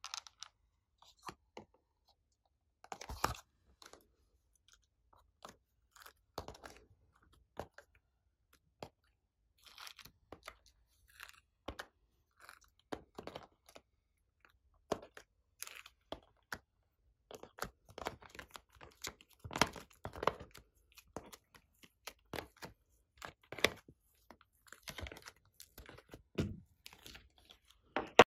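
Irregular short clicks and taps of clay hearts being pressed out of a silicone heart mould and set down in a plastic tray of slime, sparse at first and more frequent in the second half.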